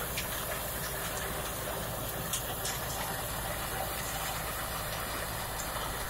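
Tractor engine running steadily under load, driving a rotary mulcher that shreds dry crop residue into a dense, even noise. A few sharp clicks sound over it.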